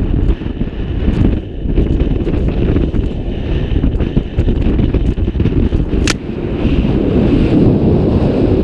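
Steady wind buffeting the microphone of a camera worn by a skier running fast downhill, with the hiss of skis on packed snow and one sharp click about six seconds in.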